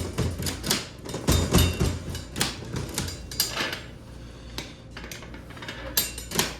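Irregular metallic clicks and clanks, a few a second, from coins and a coin-operated vending machine being handled. The clicks are busiest in the first two seconds, with another sharp knock about six seconds in.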